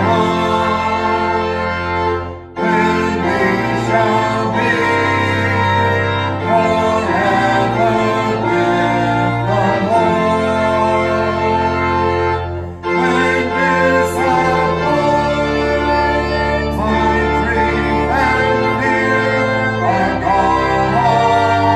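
Slow worship music: sustained chords under a wavering melody line, with two short breaks between phrases.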